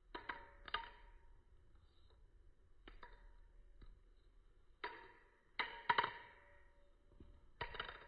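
Sharp metallic clacks of a balisong's handles and blade knocking together as it is flipped. There are about seven clacks at uneven intervals, each with a brief ringing ping.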